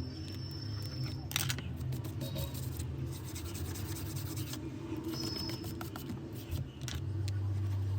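Small hand tools clicking and scraping on a phone during repair, with a few sharp clicks, over a steady low hum.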